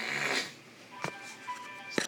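A short rush of noise, then thin electronic hold music over a phone line, starting about a second in and broken by a few clicks.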